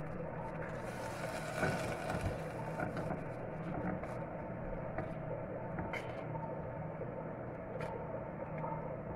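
Steady mechanical hum of a kitchen, under a few light clicks of a metal spoon on a tin as it is scooped into a saucepan.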